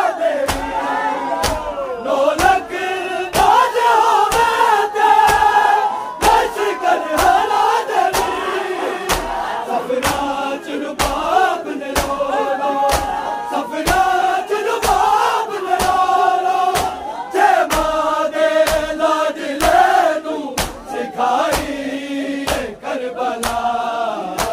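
Men's voices singing a Punjabi noha (Shia lament) in chant-like unison, over a steady beat of many hands slapping bare chests in matam.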